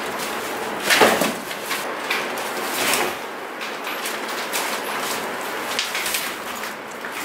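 Cardboard carton and plastic wrapping rustling and scraping as a packaged bicycle is pulled out of its shipping box, with a louder scrape about a second in.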